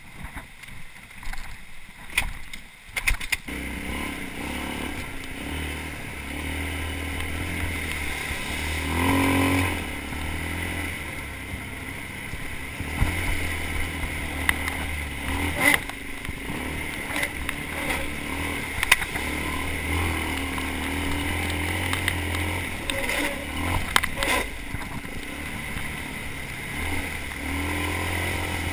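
Sport ATV engine running under load as the quad is ridden along a dirt trail. A few quieter seconds with clicks come first, then the engine drone picks up and holds, swelling with a rev about nine seconds in and again near the end. Scattered sharp knocks and rattles run through it.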